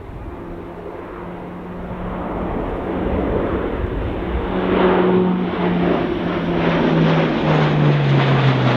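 Airbus A400M Atlas four-engined turboprop flying past: the propeller drone grows louder over the first few seconds, then its pitch falls steadily as the aircraft goes by.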